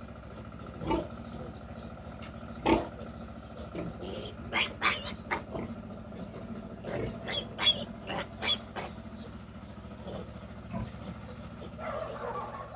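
Young piglet squealing and grunting in short bursts while being castrated, the bursts bunched in the middle of the stretch.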